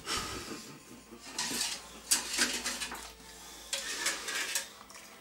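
Kitchen utensils clinking and scraping against a cooking pot in a few irregular clatters, roughly a second apart.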